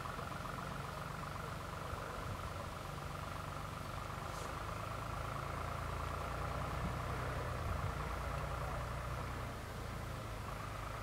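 Electric warning bell of an Italian FS 64 level crossing ringing continuously in rapid strokes, the warning that a train is approaching while the barriers are down. A steady low rumble sits underneath.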